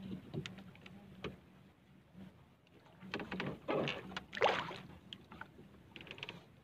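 Knocks, clicks and scraping from someone moving and handling fishing line aboard a small wooden outrigger boat, with a few louder splashy swishes about three to five seconds in.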